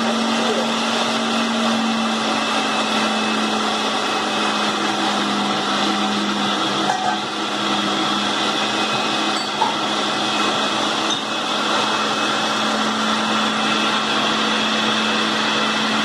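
Red countertop blender running steadily at constant speed, its motor giving an even hum of unchanging pitch as it blends carrot cake batter of eggs, oil, grated carrot and sugar.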